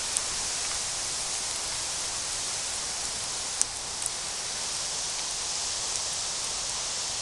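Campfire burning with a steady hiss and crackle, with a few sharp pops of burning wood, the loudest about three and a half seconds in.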